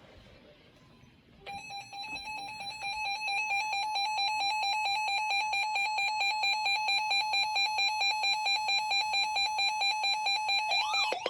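A weather radio's electronic alert alarm going off, a single pitched beeper tone with a rapid, even pulsing, starting about one and a half seconds in and holding steady. It signals that a warning has been received. Just before the end a second, warbling siren-like alert tone starts up.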